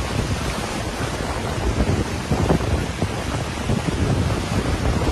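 Floodwater rushing along a flooded street, a steady rushing noise, with wind buffeting the microphone in low, gusty rumbles.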